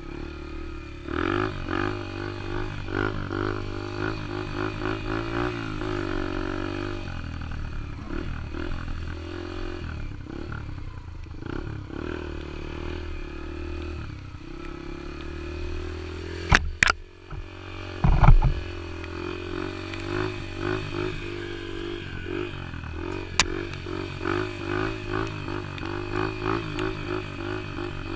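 Yamaha TT-R125 dirt bike's single-cylinder four-stroke engine running while being ridden, the revs rising and falling. A few sharp knocks come about two thirds of the way through.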